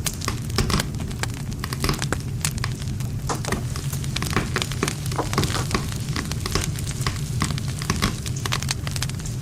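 Campfire of burning wood crackling and popping: many irregular sharp snaps over a steady low rumble of flame.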